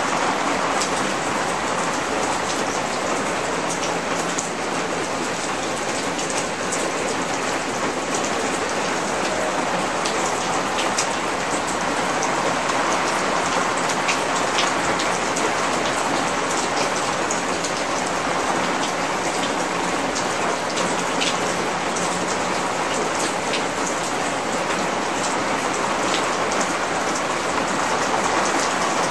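Heavy rain falling steadily on a concrete rooftop, a constant hiss with scattered sharper drop taps.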